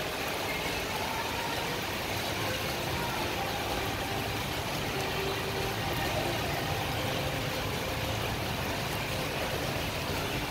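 Steady urban background noise with a car engine running close by, an even wash of sound with no sharp events.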